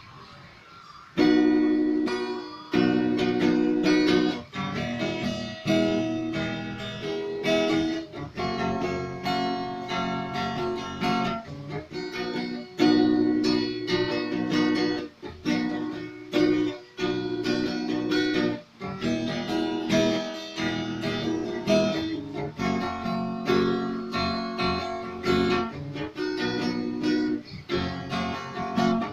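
Acoustic guitar strummed in a steady rhythm, chord after chord, starting about a second in.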